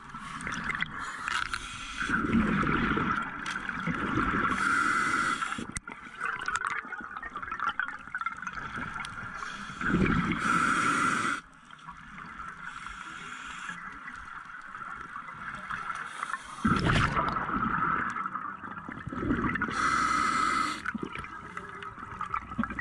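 Scuba diver breathing through a regulator underwater. Each breath brings a hiss and a rushing gush of exhaust bubbles, and the breaths repeat every few seconds.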